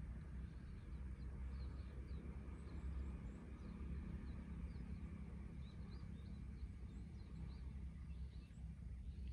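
Outdoor ambience at a lakeshore: wind rumbling on the microphone, with many short high chirps of small birds scattered throughout.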